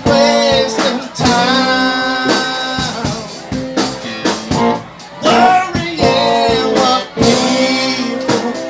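A song performed with singing over guitar, the voice holding wavering notes in phrases about a second long.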